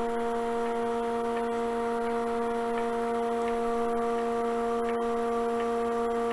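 Woodturning lathe and its vacuum-chuck pump running: a steady, even electric hum that holds one pitch throughout.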